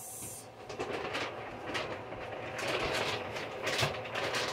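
Irregular clatter of kitchen items being handled: a quick, uneven run of light clicks and knocks, busiest in the second half.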